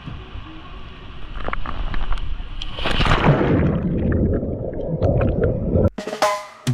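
A boat under way: a low engine rumble with a rushing of wind and water that grows loud about three seconds in. It cuts off suddenly near the end as music begins.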